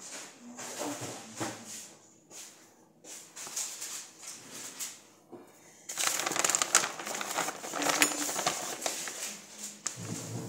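Shredded cheese being picked up by hand and sprinkled over a pizza: soft scattered pattering and rustling. Past the middle it turns into a louder, denser stretch of crackly rustling as the hand gathers more cheese.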